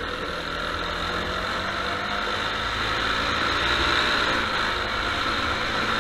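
Go-kart engine running, heard from an onboard camera, under a steady hiss; the engine note wavers and the sound gets a little louder toward the middle.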